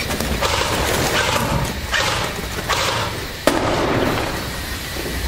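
Footsteps on a gritty concrete floor and the rustle of tactical gear from a person moving quickly close to the microphone. There is one sharp click about three and a half seconds in.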